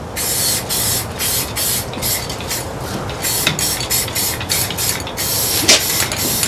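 Aerosol spray can fitted with a trigger handle, hissing in a quick series of short bursts.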